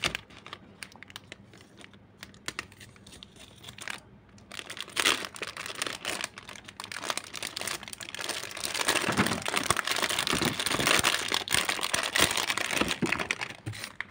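Clear plastic wrapping around a pack of clay bricks crinkling as it is handled and opened: scattered light clicks and rustles at first, then dense, loud crinkling through the second half.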